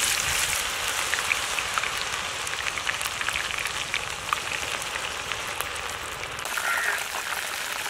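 Masala-coated mushroom pieces sizzling as they deep-fry in hot oil in a clay pot, with more pieces being dropped in: a steady, dense crackle of many small pops.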